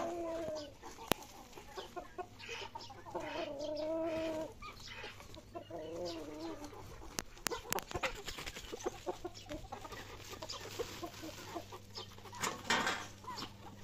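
Chickens calling, with three drawn-out, wavering calls: at the start, about three seconds in and about six seconds in. Scattered sharp clicks and a short louder noise near the end.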